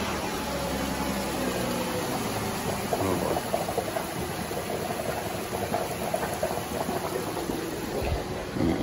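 Car engine idling steadily while coolant bubbles and gurgles in a spill-free funnel on the radiator filler, as air is burped out of the cooling system.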